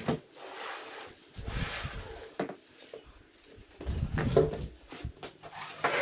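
A stand-up paddleboard being pulled out of a low storage space under wooden garage shelving: irregular scraping, rubbing and a few knocks in several short bouts.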